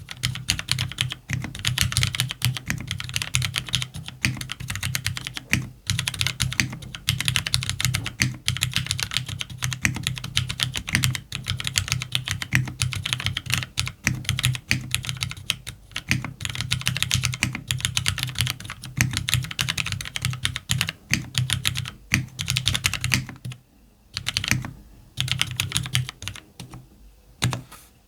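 Continuous fast typing on a CannonKeys Devastating TKL mechanical keyboard with Cherry MX Black linear switches in an FR4 plate, JTK keycaps and lubed stabilizers: a dense run of keystroke clacks that thins to sparser presses in the last few seconds.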